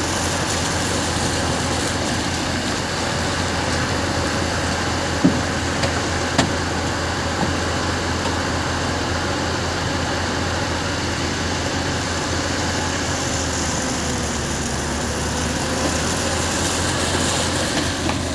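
Heavy diesel engine running steadily, with a couple of short sharp knocks about five and six seconds in.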